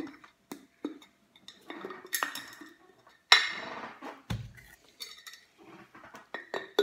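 Glass jar being handled: scattered clinks and knocks of glass and its lid, with a louder scraping burst about three seconds in followed by a dull thud.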